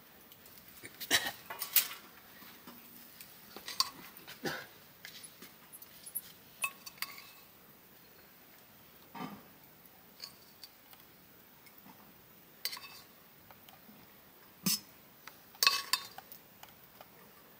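Pots and metal utensils clinking and knocking during cooking: short clatters every second or two, some with a brief ring, with quiet gaps between.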